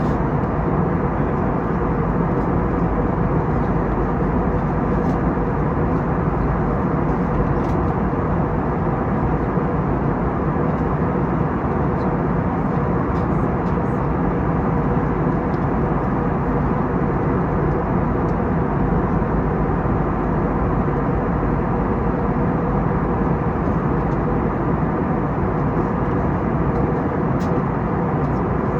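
Steady cabin rumble of an Airbus A321neo heard from inside the passenger cabin: the Pratt & Whitney geared-turbofan engines and airflow running evenly, with a faint steady hum under the roar.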